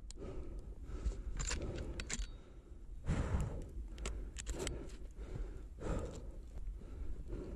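Footsteps crunching through fresh snow, about one step a second, with rustling clothing and small rattling clicks of carried gear.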